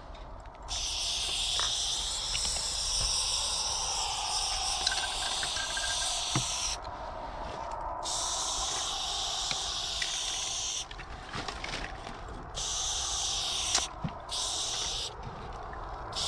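Aerosol spray-paint can hissing as it sprays lines onto a wall: a long spray of about six seconds starting just under a second in, a second spray of about three seconds, then three shorter bursts of about a second each near the end.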